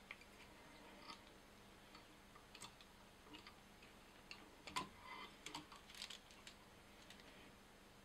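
Near silence with faint scattered ticks and clicks, most of them about five to six seconds in: a whip-finish tool and tying thread being worked at the head of a fly in the vise.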